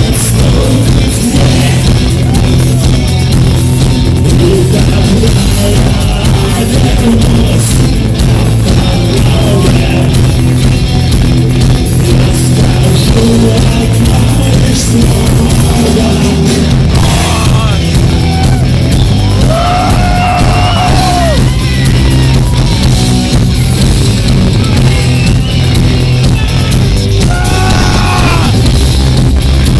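Loud rock music with vocals, playing steadily throughout.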